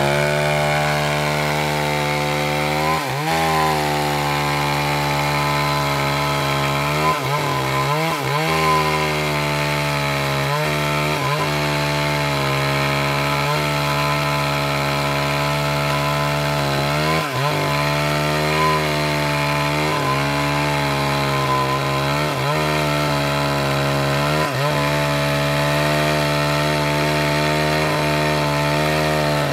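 Small two-stroke chainsaw running at high revs while cutting through a log, its engine tone steady, with brief dips in pitch every few seconds as the chain loads up in the wood.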